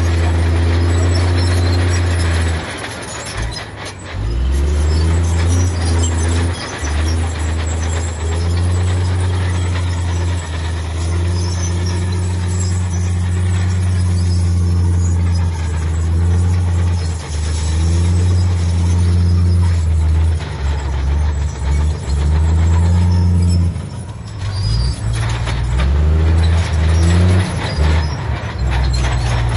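Heavy diesel engine of earthmoving machinery running under changing load, its deep note dipping and picking up again several times.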